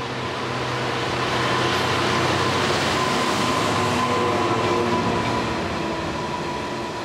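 A Class 66 diesel locomotive's two-stroke V12 engine drones as it passes. Loaded engineering wagons then roll by with a steady rumble, loudest about two to five seconds in, with a thin steady whine over it.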